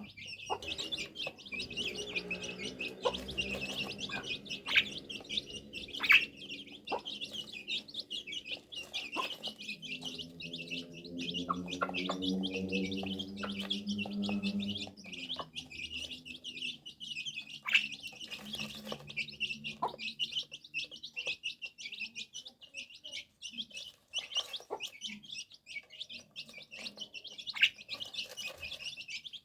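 Continuous, rapid high-pitched bird chirping throughout. A lower pitched hum runs under it through the first half and fades out at about 15 seconds.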